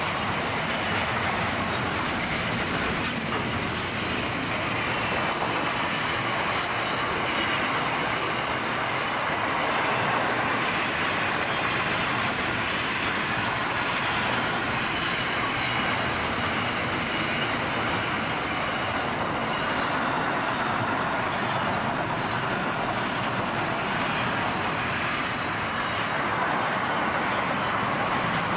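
Container wagons of a long intermodal freight train rolling past: a steady, unbroken noise of steel wheels running on the rails.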